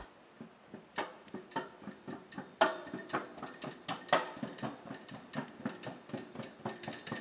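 Freestyle scooter riding down concrete stairs: the wheels knock against the step edges one after another, an irregular run of sharp knocks about two to three a second, with a few louder ones.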